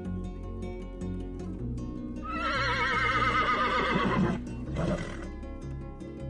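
A horse whinnying: one long, wavering call about two seconds in, then a short second call about a second later, over steady background music.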